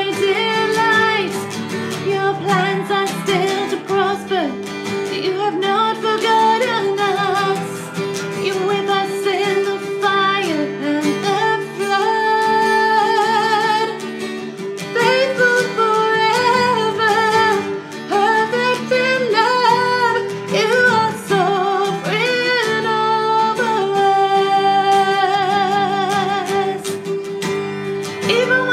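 A woman singing a worship song, accompanying herself on a strummed acoustic guitar.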